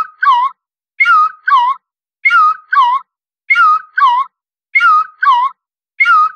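A two-note squeaky whistle repeating very regularly, about one pair every second and a quarter, six times. The first note slides down and holds; the second dips and comes back up.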